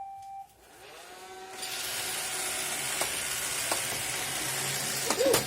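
A Roomba robot vacuum finishes its short stepped start-up chime, then its vacuum motor and brushes spin up over about a second into a steady whirring hiss, with a couple of faint clicks. Sharp knocks come near the end.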